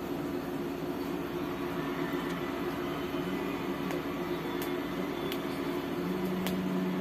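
A steady machine hum, like a fan or air conditioner, with a few faint clicks and taps as the stiff magnet sheets of a paper doll book are handled and a page is turned.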